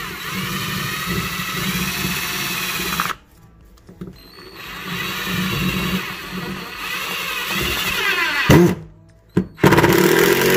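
Bauer 20V cordless drill motor whirring in several trigger-pulls, its pitch rising and falling with speed, as it drives a screw into a piece of wood. The first run stops about three seconds in, a second run builds up until sharp clicks near the end, and then a loud steady run follows.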